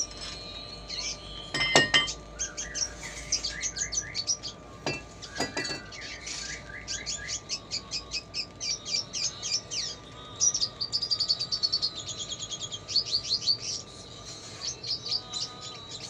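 Red siskin singing a long, fast run of high twittering chirps and trills, its song filled with notes copied from lovebird calls. Two sharp knocks stand out in the first half.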